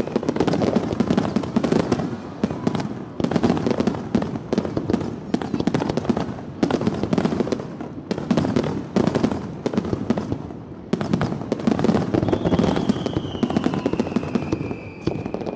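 Fireworks display: a dense, continuous barrage of bangs and crackles, with a falling whistle through the last few seconds.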